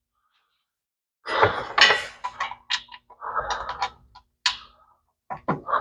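Tools and metal hardware clinking, knocking and scraping in an irregular series of short sharp sounds. A short grunt of effort comes near the end.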